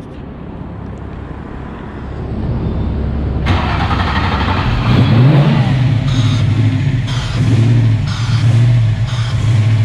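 A car engine running and being revved up and down while it is tuned. It grows suddenly louder and fuller about three and a half seconds in.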